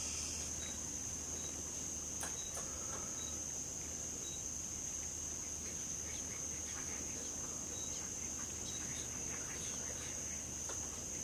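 Insects trilling in one steady, high-pitched drone, with faint scattered clicks and short chirps through it.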